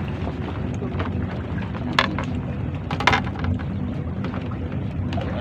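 A motor running steadily with a low hum, with wind buffeting the microphone and two sharp clicks about two and three seconds in.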